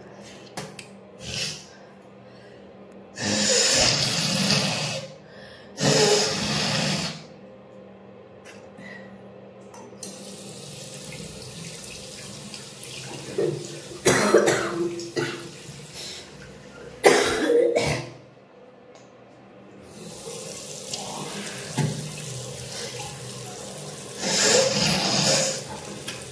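A woman with a cold forcefully blowing her nose and hawking to clear mucus, in about five loud bursts, over a sink. A tap runs into the sink from about ten seconds in, with a short break.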